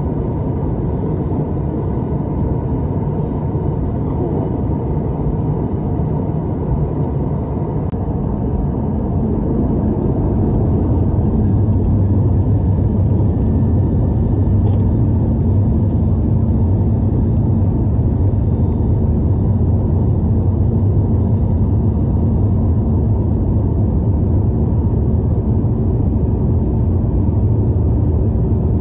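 Cabin noise of a Boeing 737-900ER taxiing: a steady low rumble from its CFM56 jet engines. About 11 seconds in it grows a little louder and a steady low hum comes up.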